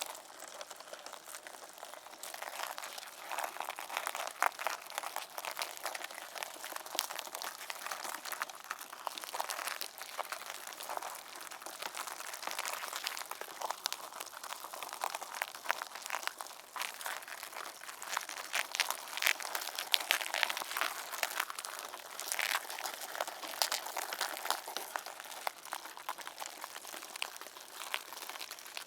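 A mass of mealworms making a dense, continuous crackling and rustling of many tiny clicks.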